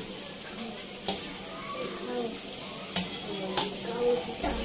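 Ceramic tea cups set down on a stainless-steel tray with three sharp clinks, about a second, three seconds and three and a half seconds in. Under them runs the steady sizzle of food frying in a wok on the gas stove.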